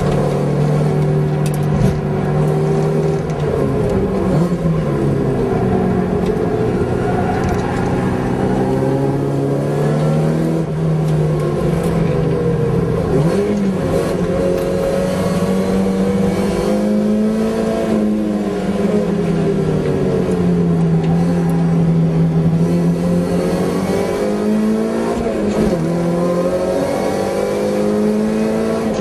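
Toyota AE86's four-cylinder engine heard from inside the cabin, driven hard on track: the engine note climbs and falls over and over as it revs up through the gears and drops back for corners.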